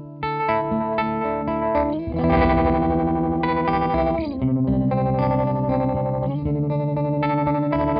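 Electric guitar chords played through a CopperSound Loma Prieta harmonic tremolo pedal, the notes pulsing with the tremolo. The chord changes about two seconds in, again past four seconds and again past six seconds.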